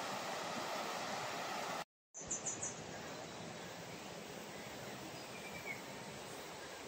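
Steady outdoor ambience, an even hiss, that drops out completely for a moment about two seconds in and comes back slightly different, with a quick run of four short high chirps just after the break and a faint bird call near the end.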